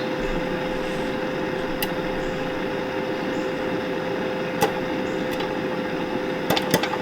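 Air fryer fan running with a steady hum while popcorn kernels pop inside the basket: a handful of sharp pops, several in quick succession near the end, as the kernels start to burst.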